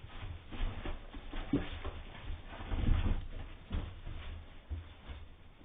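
Beagle puppies scuffling about at play: irregular soft knocks and patter, with one short squeak about one and a half seconds in.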